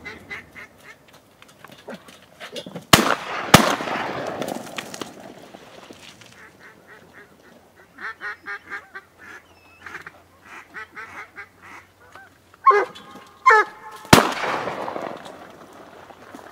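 Shotgun shots: two blasts under a second apart, each trailing off in an echo. Then a run of short quacking calls, a couple of louder honking calls, and a third shot near the end.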